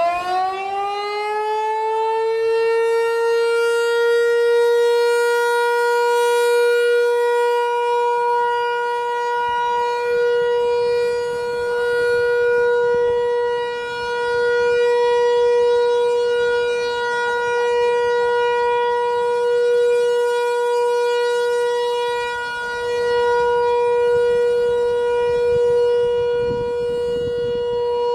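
ASC T-128 outdoor warning siren sounding the steady Full Alert signal at its monthly test. It finishes winding up over the first couple of seconds, then holds one steady tone. Its loudness swells and fades slowly every several seconds as the rotating head sweeps past.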